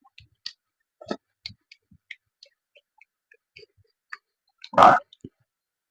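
Close-miked eating sounds from a person chewing spicy chicken intestine: a string of small wet clicks and smacks, with one louder, short mouth noise near the end.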